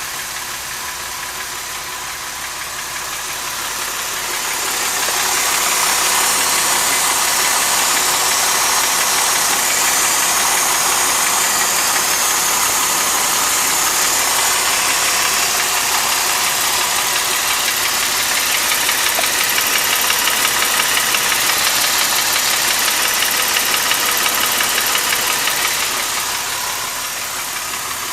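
Mercedes-Benz M272 3.5-litre V6 in a 2005 SLK350 running with a persistent knocking noise, which the owner suspects may come from a scored cylinder wall. The sound grows louder about four seconds in and falls back near the end.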